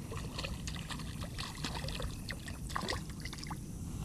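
Small sunfish splashing at the water's surface as it is reeled in on light spinning tackle: a run of quick, irregular splashes and drips.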